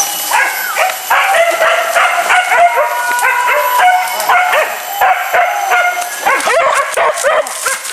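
Several hunting dogs barking and yelping together, loud, many short overlapping high calls at different pitches without a break.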